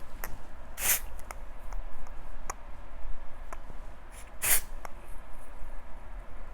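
Two short spritzes of hair spray, about three and a half seconds apart, with light handling clicks between.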